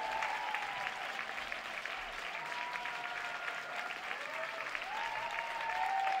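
Theatre audience applauding steadily, with a few voices whooping in rising and falling pitches over the clapping.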